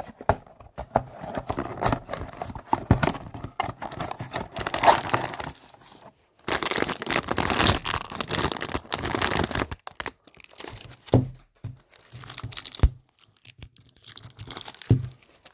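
Blind-box packaging being opened by hand: cardboard and plastic wrapping torn and crinkled in irregular spurts, pausing briefly about six seconds in and again near the end.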